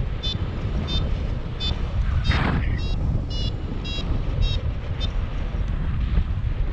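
Wind buffeting the microphone in flight. Over it a paragliding variometer gives a run of short beeps, about one and a half a second; their pitch dips and then rises again, and they stop about five seconds in. A short rush of noise comes about two seconds in.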